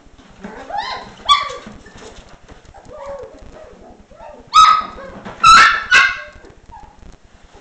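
One-month-old Dalmatian puppies yipping: a few softer, rising high calls in the first second or so, then three loud, sharp, high-pitched yips in quick succession past the middle.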